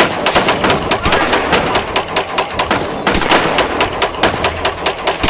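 Rapid gunfire sound effect: a dense, unbroken string of shots like automatic weapons firing, starting abruptly.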